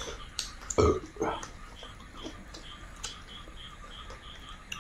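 Mouth sounds of eating rice and curry by hand: smacks and clicks in the first second and a half, then a faint high call repeating about three times a second in the background.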